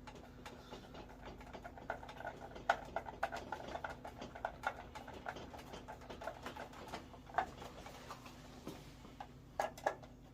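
Irregular light clicks and taps of tools and small parts being handled, over a steady low hum.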